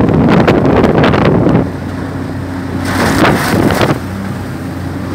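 Two-cylinder 24 hp MRS-24 outboard mud motor (surface drive) running, pushing the boat along; it gets quieter about a second and a half in, with a short burst of hissing noise near the middle.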